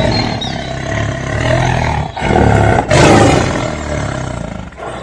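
Tiger roaring: two long, rough roars with a short break about two seconds in.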